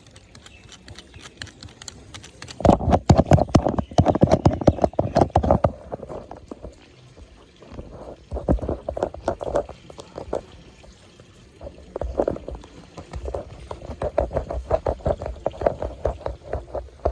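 Kawasaki ZX-10R motorcycle's inline-four engine through its stock exhaust, heard in three loud bursts of rapid pulsing with quieter stretches between them.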